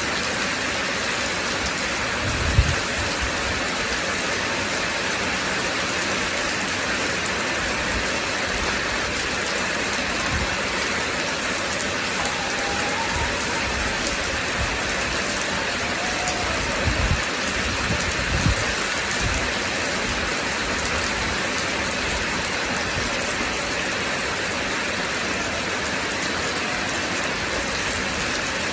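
Steady rain falling, with a few brief low thuds, one about two and a half seconds in and a cluster around seventeen to eighteen seconds.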